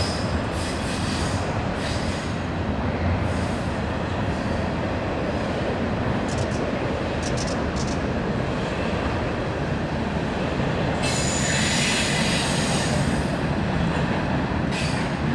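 Double-stack intermodal freight train rolling across a steel bridge with a steady rumble and clatter of wheels, with brief high wheel squeals around six to seven seconds in and a louder high screech for about two seconds near eleven seconds in.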